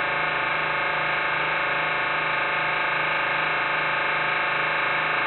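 Computer-generated sonification from a MaxMSP patch that turns a live video feed of the painting into sound: a dense, steady cluster of many sustained electronic tones, with a low tone pulsing about twice a second underneath.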